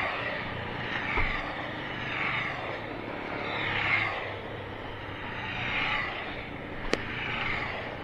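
A string of motorcycles passing by one after another, each rising and fading as it goes past. There is a single sharp click about seven seconds in.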